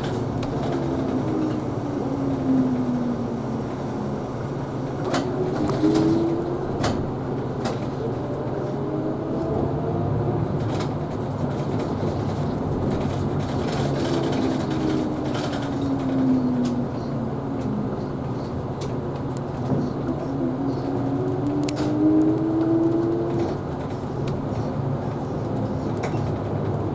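Isuzu Erga Hybrid city bus driving, heard from inside: a steady low drivetrain hum with a whine that rises and falls in pitch several times as the bus speeds up and slows down. Occasional knocks and rattles come through.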